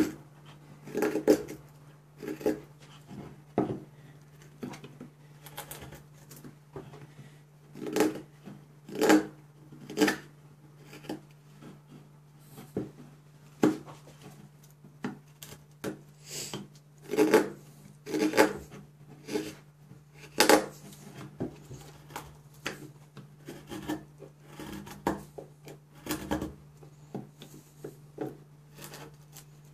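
Scandi-ground carbon-steel Mora Companion knife cutting into a hard pine block: a string of short scraping strokes at an uneven pace, about one or two a second, as the blade takes shavings out of a notch in the corner.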